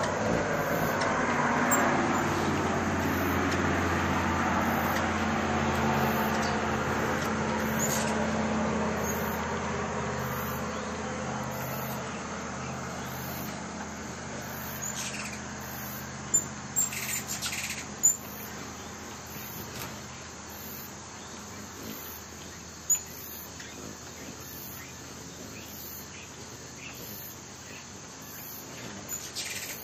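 A passing vehicle's rumble fades away over the first several seconds. After it, a few short high bird chirps come and go over a low steady hum.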